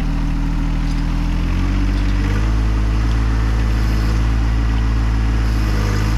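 John Deere 1025R sub-compact tractor's three-cylinder diesel engine revving up about two seconds in, then holding at high revs under load as the tractor pulls on a chain hooked to a fallen tree.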